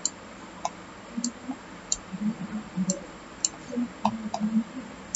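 Computer mouse clicking while a 3D model is being worked on: about eight short, sharp clicks at irregular intervals, with faint low sounds between them.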